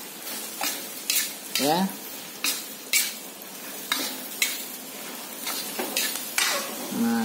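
Metal spatula scraping and turning food in a stainless steel wok, about two strokes a second, over the steady sizzle of vegetable stalks stir-frying.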